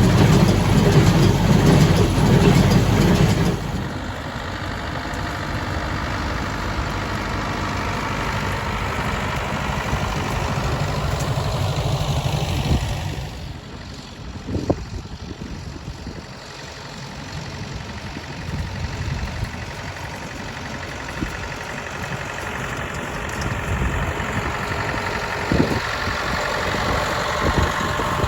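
Ford tractor engines running at a steady pace while working hay. The sound is loud for the first few seconds, then quieter from about four seconds in, and quieter still from about halfway, with a few sharp knocks near the end.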